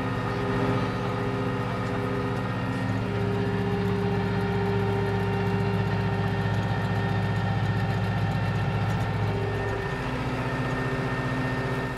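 New Holland TN75F tractor's diesel engine running steadily while pulling a rototiller, heard from inside the cab. The engine note shifts slightly about three seconds in and again near ten seconds.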